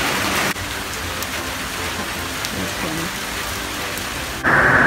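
Heavy rain pouring, a steady hiss that drops a little about half a second in and grows louder near the end.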